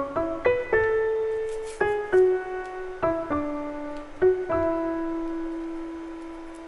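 Background music: a solo piano plays a gentle melody of single notes. The last note, struck about four and a half seconds in, is held and slowly fades.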